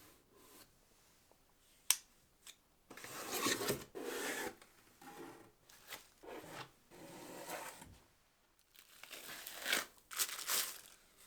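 Packaging being torn open and crinkled by hand: a sharp click about two seconds in, then several bursts of tearing and crinkling.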